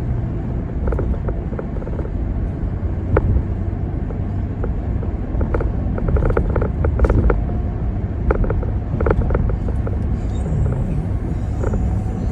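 Road noise heard from inside a moving car: a steady low rumble of tyres and engine, with frequent short clicks and rattles over it.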